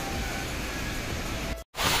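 Steady rushing noise with a low rumble, broken by a brief silent cut about one and a half seconds in, after which the louder, hissing rush of Kynrem Falls, a tall waterfall in full monsoon flow, begins.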